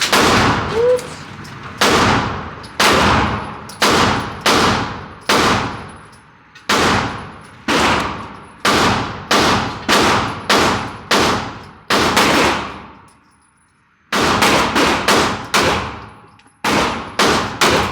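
Firearm shots fired one after another in steady semi-automatic succession, each with an echoing tail. They pause for about a second and a half about two-thirds of the way through, then resume.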